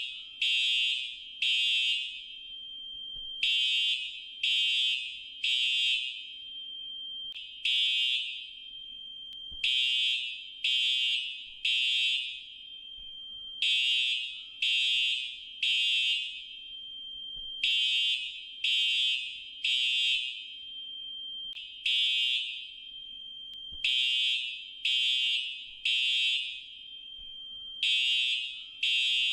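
Fire alarm sounding its evacuation signal: high-pitched beeps come mostly in groups of three, each group followed by a short pause, repeating over and over. This is the temporal-three pattern that calls for evacuation.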